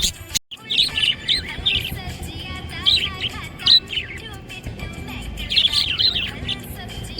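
Budgerigar chirping in quick, busy runs of short, high chirps, after a brief break in the sound about half a second in.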